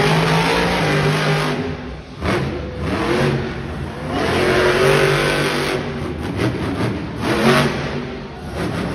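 Monster truck's supercharged V8 engine revving hard, its pitch climbing and falling again and again as the driver works the throttle through turns and a wheelie.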